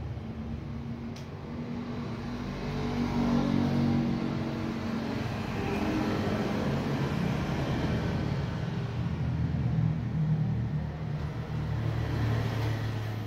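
Low rumble of motor-vehicle engines, steady with slowly shifting pitch, swelling louder a few seconds in and again near the end.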